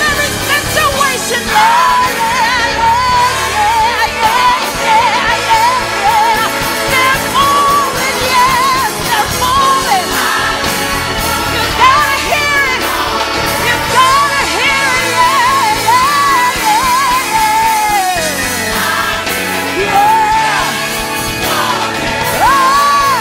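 A woman singing a gospel song into a microphone over live band accompaniment, her voice moving through sliding runs and wavering held notes.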